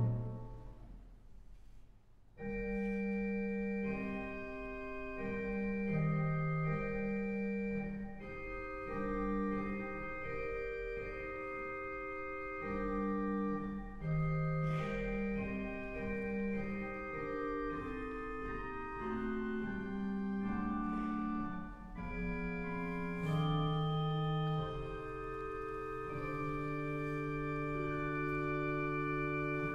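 Pipe organ playing softly: a loud chord rings away in the hall's reverberation, then about two seconds in quiet sustained chords begin, with notes shifting every second or so, and die away near the end.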